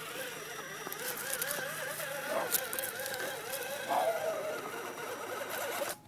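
Scale RC rock crawler's electric motor and gears whining, the pitch wavering up and down as the throttle is eased on and off over rocks and a wooden ramp, with a few light knocks.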